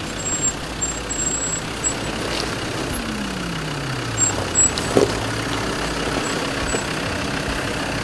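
Land Rover Discovery II engine running at low speed as the vehicle crawls over rocky ground; its note drops about three seconds in, with a few short sharp knocks.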